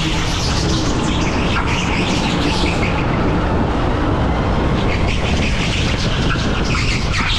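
Electric rental go-kart heard onboard while lapping an indoor track: a steady rush of tyre and wind noise.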